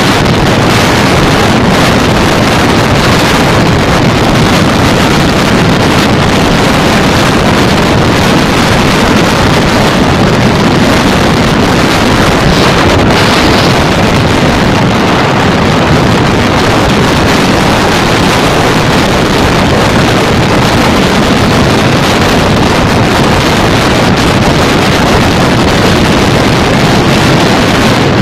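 Loud, steady wind rush on the microphone of a Bajaj Pulsar 220 motorcycle at highway cruising speed, with the bike's single-cylinder engine running underneath.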